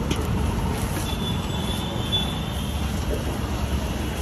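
Steady low rumble of street traffic, with a faint high squeal from about a second in until past the two-second mark.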